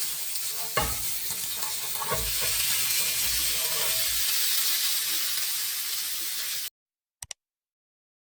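Sardines frying in hot sunflower oil in a pan: a steady sizzle with a couple of knocks about one and two seconds in. The sizzle cuts off suddenly near the end, followed by a brief double click.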